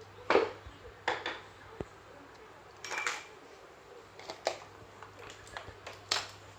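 Irregular clicks and knocks of tools and small parts being handled on a repair bench, over a steady low hum.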